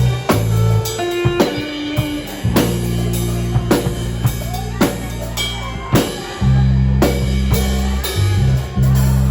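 Music with a drum kit playing: bass drum and snare hits over a held bass line that changes note every second or two.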